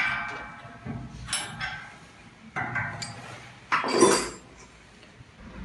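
Metal clinks from a hex key and the steel parts of a can sealing machine's seaming-roller holder as the roller gap is set. There are about four sharp knocks, each with a short ringing tone, the loudest a little before four seconds in.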